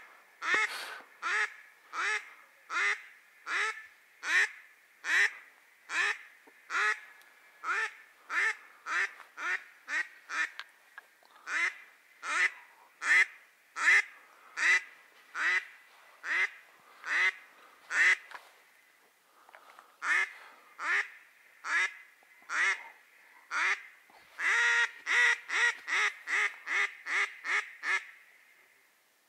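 Loud duck quacks, one after another about every second, with a short break about two-thirds of the way through and a quicker run of quacks near the end.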